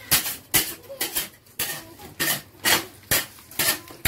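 Flat metal scraper striking and scraping across a candy slab, about two strokes a second, as hot sugar syrup for jav mittai is turned and folded to cool.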